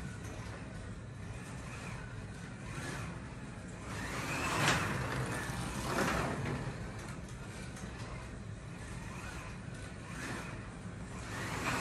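Carrera 1:32 Evolution Pontiac Firebird Trans Am slot car, inline electric motor, running laps on a plastic slot track: a steady motor whirr with the rumble of the car in the slot. It swells each time the car passes close, loudest about four to five seconds in, again at six seconds and near the end.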